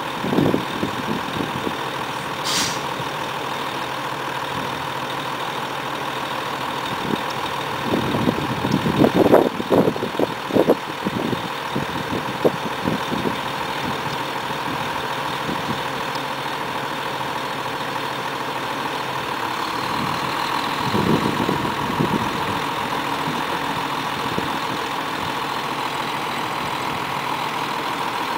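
Heavy diesel truck engines idling steadily, with a few irregular louder bumps and rumbles around ten seconds in and again a little after twenty seconds.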